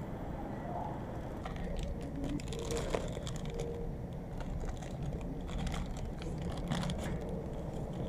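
Plastic film wrapper crinkling and rustling in short bursts as it is pulled off a katsu sandwich in a paper tray. Underneath is the steady low drone of the ferry's engines.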